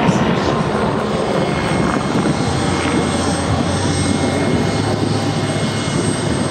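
MBB Bo 105 twin-turbine helicopter in a display flight, its rotor and turbine noise loud and steady as it passes almost directly overhead.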